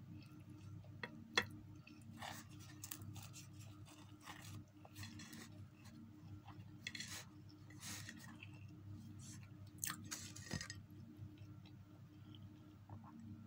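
Close-miked chewing and mouth sounds of someone eating instant noodles and flatbread, with scattered small clicks from a fork against the plate, the sharpest about a second and a half in. A steady low hum runs underneath.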